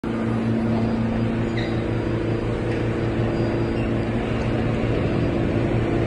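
Steady hum of an R46 subway car standing at the platform with its doors open, an even drone with a low hum and a steady mid-pitched tone from its onboard equipment.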